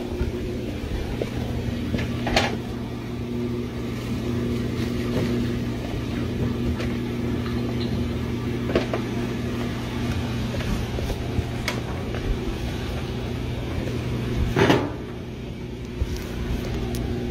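A household appliance's electric motor hums steadily, with a few light knocks, then stops with a clunk about fifteen seconds in.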